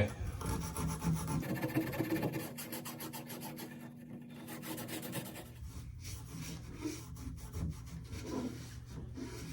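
Scotch-Brite scouring pad scrubbed rapidly back and forth inside a shower valve body, cleaning corrosion and crud off the cartridge seat; the rubbing is strongest for about the first five seconds, then softer.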